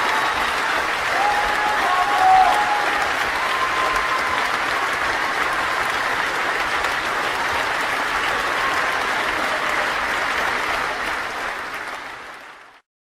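Crowd applauding steadily, with a few faint whoops near the start; the clapping fades away and stops shortly before the end.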